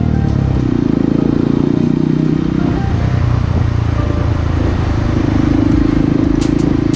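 Motorcycle engine running at steady revs while riding, heard from the bike itself, with the engine note easing off briefly in the middle. A few sharp clicks near the end.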